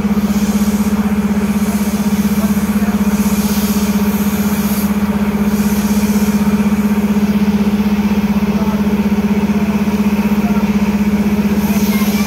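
An engine running steadily at constant speed, a strong low hum with a fast even pulse that does not change.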